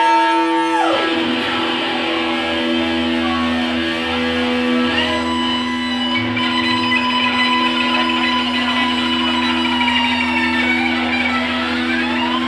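Live band music played through an amplified PA: long held notes over a steady sustained drone, with a downward sliding pitch bend about a second in and swooping bends up and down near the end.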